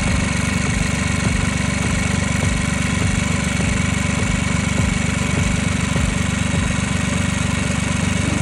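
An engine running steadily at idle, with a fast, even low pulse under a dense mechanical noise.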